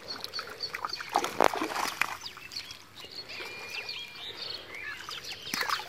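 Wet fishing net and water splashing and slapping as a seine net is hauled up onto a muddy bank, in scattered short splashes with one sharper slap about a second and a half in.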